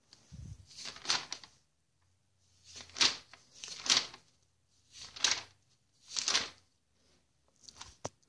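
Pages of a glossy magazine being turned by hand: about six quick paper swishes and rustles, roughly a second apart.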